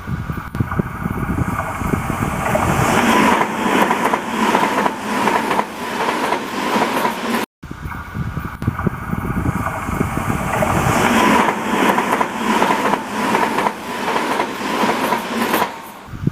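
N gauge model train (TOMIX Tobu 100 series Spacia) running past on the track: a steady motor whine over rapid clicking of wheels on rail joints, building up as it passes. The same pass is heard twice, broken by a short cut about seven and a half seconds in.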